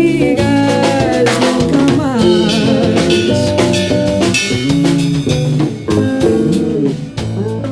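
Instrumental bossa nova passage from a small jazz band: guitar, bass and drum kit playing together.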